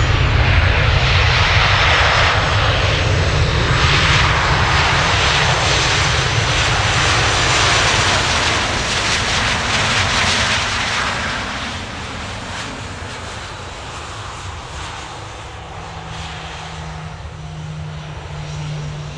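A Boeing 737-800 airliner's twin CFM56-7B jet engines, loud while it rolls past on the runway. The noise drops off after about twelve seconds as the plane moves away, leaving a lower steady hum.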